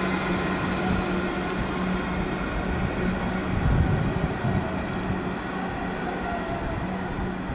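Comeng electric suburban train pulling away along the line, a continuous rail rumble with a steady low hum, briefly louder about halfway through.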